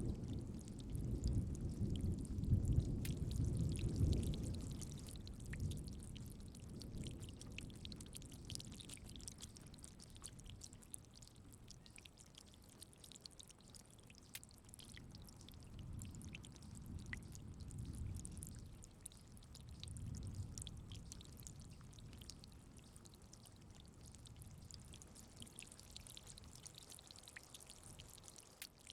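Steady rain pattering, with low rolling thunder that is loudest in the first few seconds and dies away. Two fainter rumbles follow past the middle.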